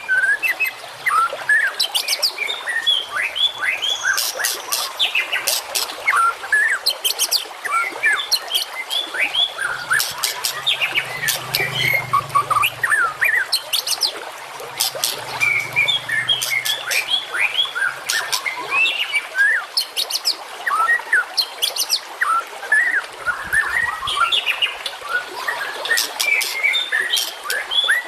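Dense songbird song from a recorded birdsong 'masteran' track: rapid chirps and short downward-sliding whistles overlap with runs of sharp, very high clicking notes. A faint low hum comes in around the middle.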